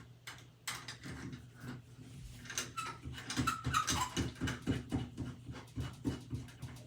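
Plastic shower-head fittings being handled and screwed onto the shower arm by hand: a run of quick clicks and taps, several a second, with a few short squeaks in the middle.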